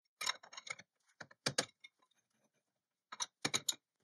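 Light metallic clicks and clinks of a three-jaw lathe chuck being handled on the lathe spindle, in three short clusters: a run of clicks at the start, two sharp clicks about a second and a half in, and another quick run near the end.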